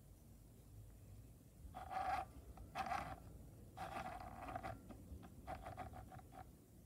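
Electric sewing machine stitching in four short bursts, each a second or less, as the foot pedal is pressed and released; the last burst has a rapid run of needle strokes.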